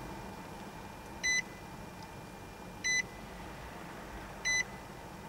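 2008 Nissan Pathfinder's dashboard warning chime beeping three times, short single beeps about one and a half seconds apart, with the ignition switched on and the engine not running.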